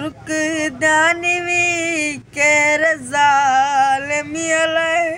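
A boy singing a song unaccompanied: long held notes with a slight waver, in several phrases broken by short breaths.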